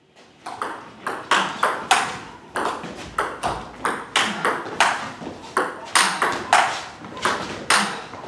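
Table tennis rally: the ball clicks sharply off the bats and bounces on the table in a quick, steady back-and-forth, starting about half a second in. One player chops with a SPINLORD Defender blade covered in pips-in Irbis II max rubber against the other's topspin.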